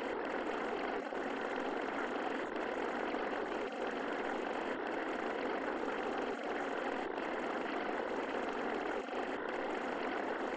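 Steady rushing noise used as the masking track of a subliminal audio, heavy in the middle range with little deep bass. It dips out briefly every two to three seconds, like a looped recording.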